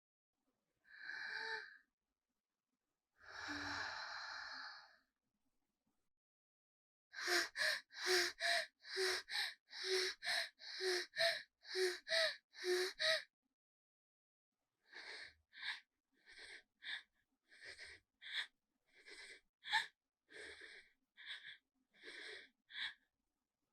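Voice-actor breath effects: a short gasp, then a long sighing exhale, then rapid voiced panting at about two breaths a second, followed by softer, more uneven short breaths.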